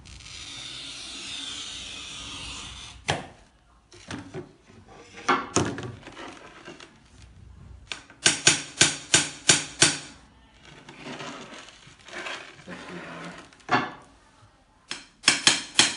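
An oil-feed glass cutter scoring a sheet of glass along a bakelite ruler: a steady scratchy hiss for about three seconds. Then sharp knocks on the glass: a single one, and later two quick runs of about six and five.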